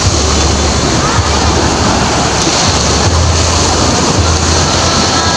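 Waves washing up on a sand beach, a steady rushing noise, with wind rumbling on the phone's microphone in gusts.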